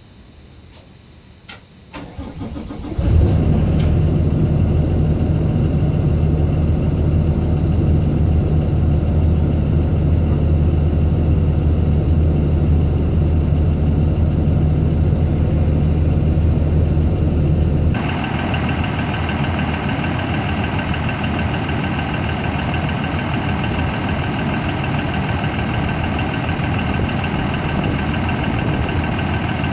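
Cummins B6.7 inline-six turbo diesel in a 2019 Thomas Saf-T-Liner C2 school bus being started: a few clicks, then the starter cranks for about a second before the engine catches about three seconds in and settles into a steady idle. About fifteen seconds after it catches, the sound changes suddenly, with less of the deep tone and more of a higher whine.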